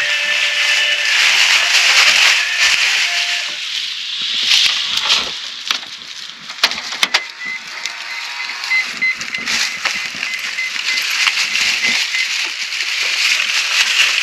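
Plastic shopping bags rustling and crinkling as groceries are handled, with a few sharp clicks about seven seconds in and a faint run of rapid high beeps soon after.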